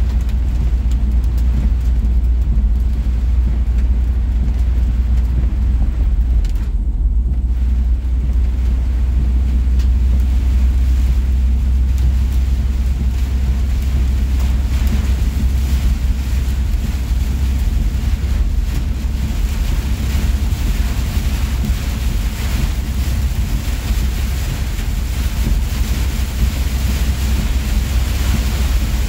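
Steady low drone of a semi-truck's diesel engine and tyres at highway speed, heard inside the cab, under a hiss of heavy rain and wind on the truck that grows stronger about halfway through.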